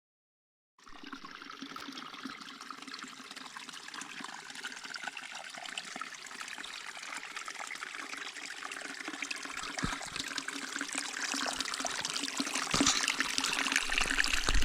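Running water: a steady rushing starts suddenly about a second in and grows steadily louder.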